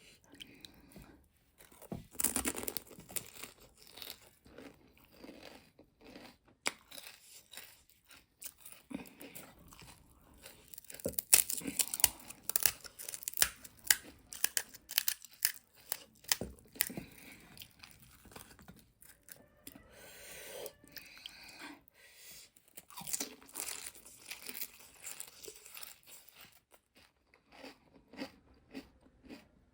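Pani puri being bitten and chewed close to the microphone: the crisp fried shells crunch and crackle in irregular bursts, loudest a couple of seconds in, around the middle and again about three quarters through.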